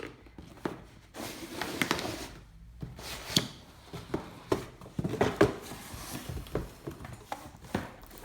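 Glossy cardboard keyboard box and its packaging being handled and opened: rustling and sliding, with scattered knocks and taps.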